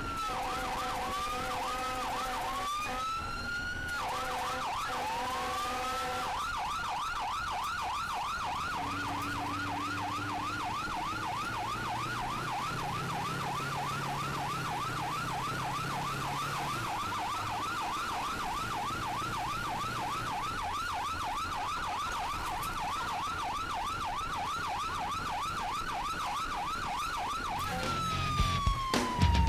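Fire engine's electronic siren, heard from inside the cab: a few irregular whoops and wails over a steady lower tone at first, then a fast yelp sweeping up and down about three times a second, and a long falling wind-down near the end.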